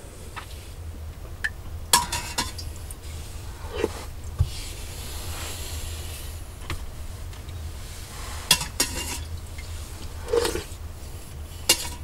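Scattered sharp clinks and knocks, about six of them, some ringing briefly, over a steady low hum.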